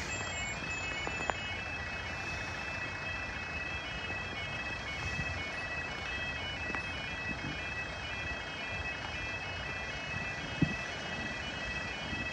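Level crossing yodel warning alarm sounding continuously, a high two-tone alternating wail, over a steady hiss of road and wind noise. A single sharp knock comes about ten seconds in.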